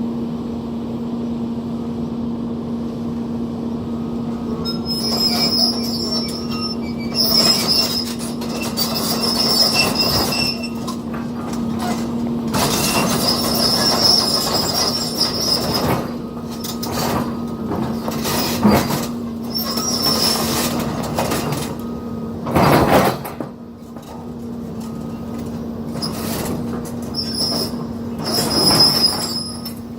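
Tracked excavator running with a steady engine hum while its tracks squeal on and off and clank and knock over concrete rubble. There is a louder knock about two thirds of the way through.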